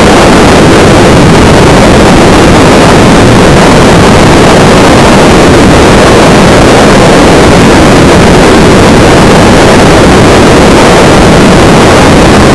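Steady, loud rush of wind and road noise from a moving car, so loud it overloads the microphone.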